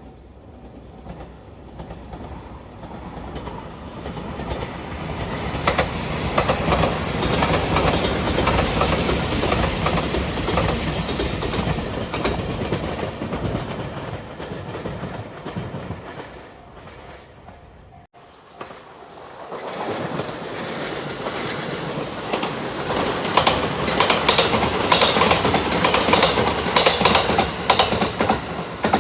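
Electric passenger trains passing close by, their wheels clattering over the rail joints. The first pass builds and fades; about 18 seconds in the sound cuts off abruptly and a second train comes through, its clatter loudest near the end.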